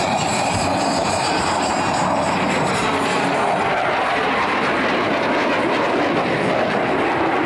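Jet noise from a U.S. Navy Blue Angels F/A-18 Hornet's twin turbofan engines as it flies past. It is a steady, loud roar.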